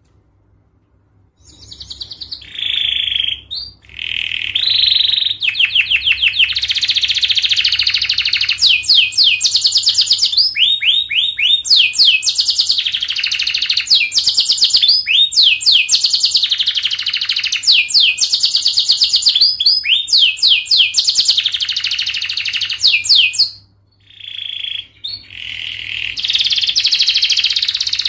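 Domestic canary singing a long song of fast trills, rolls and rapidly repeated sweeping notes, strung together in phrases. There are short pauses about a second in and again about four seconds before the end.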